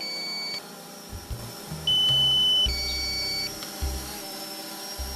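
Drone remote controller's low-battery alarm beeping, alternating a single high tone with a two-tone beep and repeating about every two seconds: the warning that the battery is nearly flat. A few low thumps fall under it in the middle.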